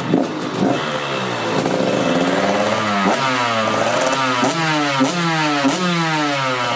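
Two-stroke dirt bike engine running on the stand, freshly fitted with a new CDI, cylinder head and reed valve and still warming up. It idles unevenly at first, then the throttle is blipped about four times, each rev shooting up and dropping straight back.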